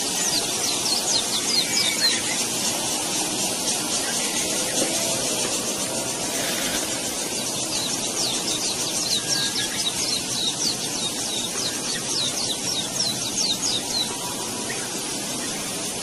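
Weaver bird giving rapid, high, chattering calls in two runs, a short one at the start and a longer one from about halfway, over a steady hiss.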